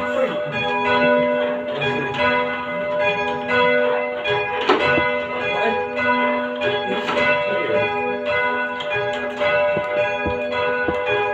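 Church tower bells ringing, with fresh strikes coming at irregular intervals over tones that hang on and overlap.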